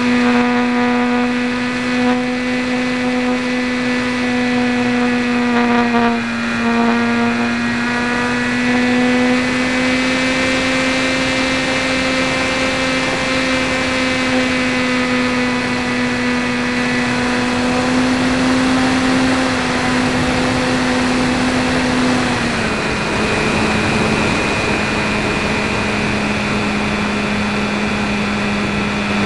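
E-flite 450 860Kv brushless electric motor spinning a 10x5 propeller on an RC trainer plane, heard from the plane's onboard camera: a steady high whine over a hiss of air. The pitch dips briefly about six seconds in and settles a little lower about three quarters of the way through.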